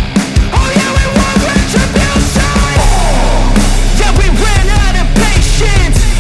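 Rock song with drums and singing played loud through a large carnival sound system during a sound check. About three seconds in, a heavy, deep bass comes in and holds under the music.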